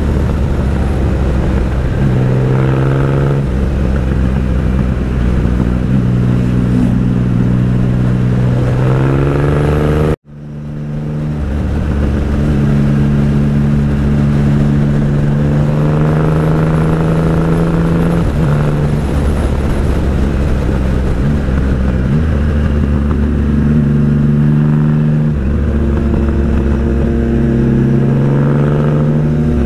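Motorcycle engine heard from on board, repeatedly rising in pitch as it accelerates, dropping back at each gear change, and holding steady at cruise in between. About ten seconds in, the sound cuts out abruptly and fades back up.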